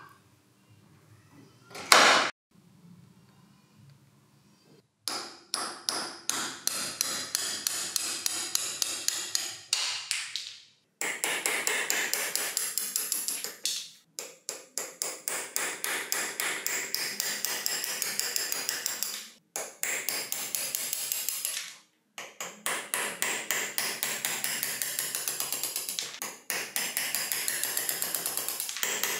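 A hammer tapping rapidly and repeatedly on the metal armature of an old electric drill being taken apart, several strikes a second in runs of a few seconds with short pauses between them. A single sharper, louder knock comes about two seconds in.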